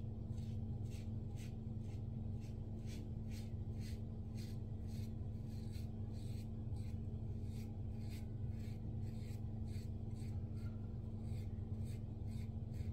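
Gillette Diplomat double-edge safety razor scraping through lathered stubble in short strokes, about two or three a second, over a steady low hum.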